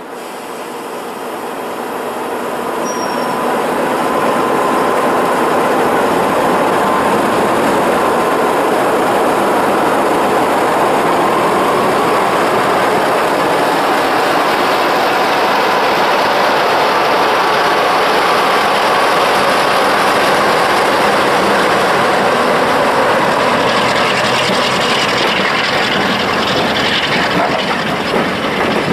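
A Class 45 'Peak' diesel-electric locomotive's Sulzer twin-bank 12-cylinder engine running under power as the locomotive passes slowly with its train. The engine noise builds over the first few seconds, then holds steady. Near the end, the coaches' wheels rattle over the rail joints.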